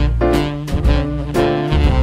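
Background music in an upbeat swing-jazz style led by saxophone, with a steady beat.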